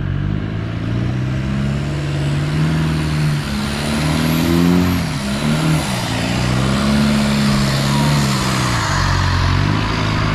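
Off-road 4x4's engine revving as it climbs a muddy track, the revs rising and falling with the throttle and the sound growing louder as the vehicle comes close.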